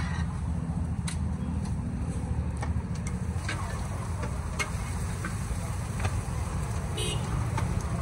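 Steady low rumble of a busy street-food stall, with scattered light clicks and clinks of metal cooking utensils and a brief rustle near the end.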